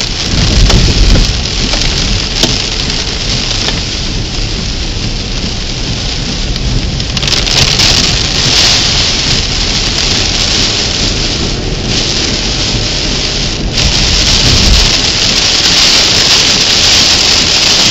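Heavy rain pelting a car, a steady dense hiss that grows heavier about seven seconds in and again near fourteen seconds.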